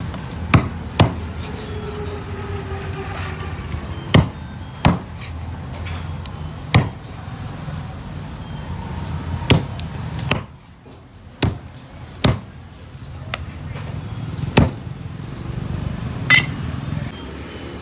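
Heavy meat cleaver chopping a raw chicken into pieces on a round wooden chopping board: about a dozen sharp, irregularly spaced chops.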